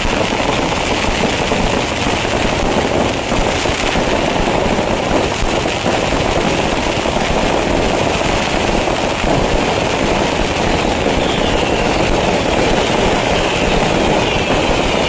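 A temple fireworks barrage firing continuously: a dense, unbroken crackle of many small explosions at a steady loudness, with faint whistles near the end.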